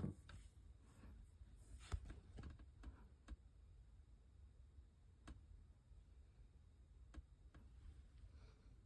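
Near silence: low room tone with a few faint, sharp clicks scattered through it.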